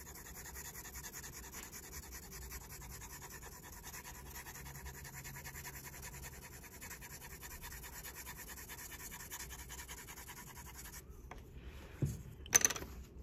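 Graphite pencil shading on paper in quick back-and-forth strokes, a steady scratching that stops about two seconds before the end. Shortly after, two sharp knocks, the loudest sounds here.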